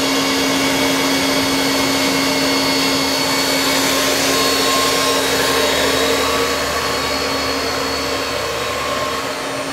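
Citizen Cincom L20 Type VII CNC Swiss lathe's main spindle running steadily at 5,000 rpm: an even whirring hum with a few steady tones in it. A lower part of the hum drops away near the end.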